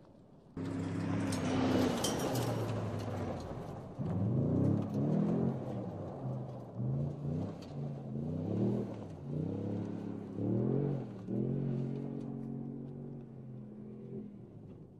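Toyota Tundra TRD Pro pickup's V8 engine driven hard off-road: a sudden rush of noise from tyres and thrown-up dirt about half a second in, then the engine note climbing and dropping again several times as it accelerates. It settles to a steadier run and fades near the end.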